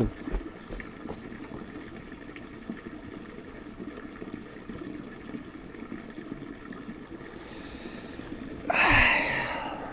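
A man's loud, breathy sigh with a falling voice, about a second long near the end, over faint steady outdoor background noise.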